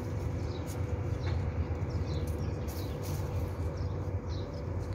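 Small birds repeatedly giving short, high chirps over a steady low rumble.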